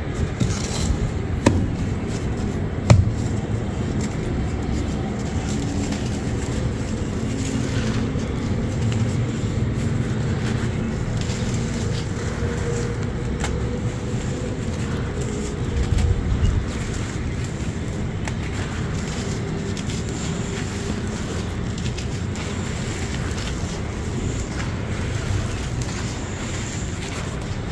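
Dry sand-cement chunks crushed and crumbled by hand, grit and powder falling onto a dusty pile. A few sharp cracks come about one and a half and three seconds in, and a louder crunch about sixteen seconds in, over a steady low rumble.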